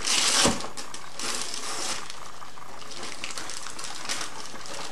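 Wrapping paper rustling and tearing as a present is unwrapped: two short bursts in the first two seconds, the first the louder, then only a steady hiss.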